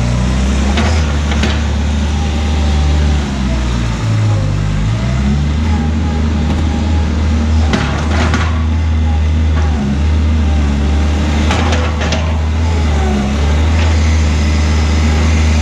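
Bobcat 463 skid steer's diesel engine running, its pitch rising and falling as the machine drives and turns. A few short sharp knocks come through, around one second in, at about eight seconds and near twelve seconds.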